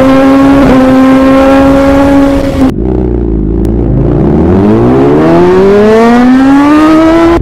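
Motorcycle engine held at high revs, then a second run where the revs dip briefly and climb steadily as the bike accelerates hard.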